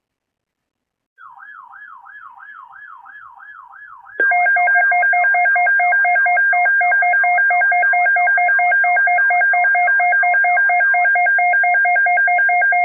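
Emergency alert tones: a faint warbling tone sweeping up and down about three times a second starts about a second in, then a loud, rapidly pulsing alarm tone of several steady pitches cuts in suddenly and holds, with the warble still faintly under it for a while.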